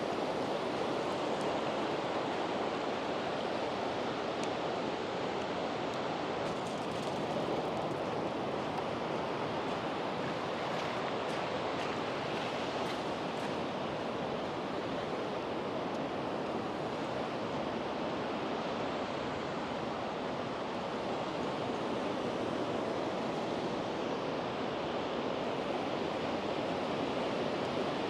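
Sea surf washing steadily onto the beach, a continuous wash of wave noise with no separate breaks standing out.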